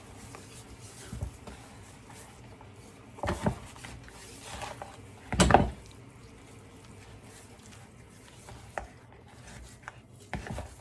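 Hands rubbing salt over a raw whole chicken, with scattered short rustles and knocks as it is handled; the loudest comes about five seconds in.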